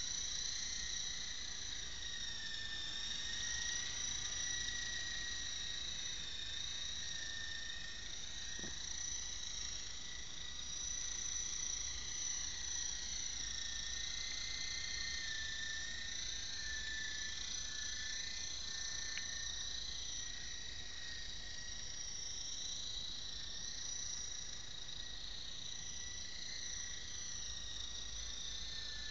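Small electric radio-controlled helicopter's motor and rotors whining steadily at a high pitch, the pitch wavering slightly as it flies and hovers.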